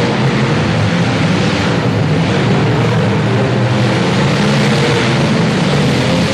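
Engines of many compact demolition derby cars running together, a loud, steady mix of several engine notes with no single crash standing out.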